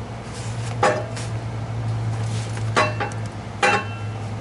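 Steel exhaust pipe clanking as the resonator section is worked into place on the catalytic converter: three sharp metallic knocks with a brief ring, over a steady low hum.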